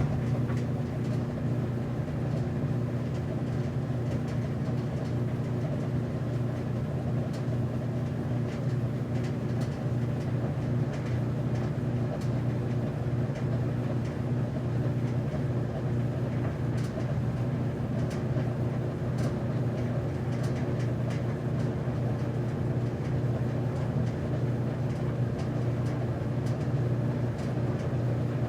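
Commercial laundromat washer-dryer running, its motor and revolving drum giving a steady low hum with a few faint scattered clicks.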